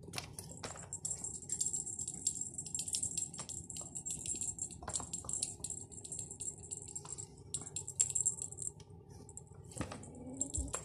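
A kitten scrabbling about on the floor and in a tray of wood-pellet cat litter: scattered light clicks and rattles, irregular.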